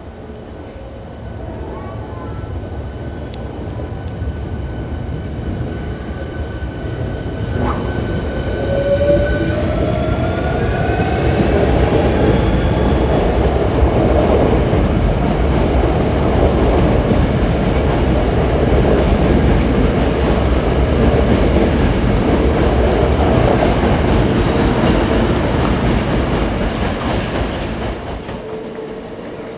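Hankyu Kyoto Line electric train pulling out. Its motor whine rises in pitch as it speeds up, and the rumble and clatter of the wheels grows loud and steady as the cars pass, then drops away near the end.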